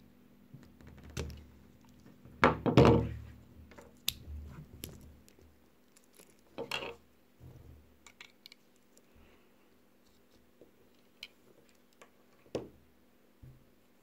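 Scattered metal clicks and knocks of Swiss Army knife tools prying open the stuck tools of an old pocket knife. The loudest clatter comes about three seconds in.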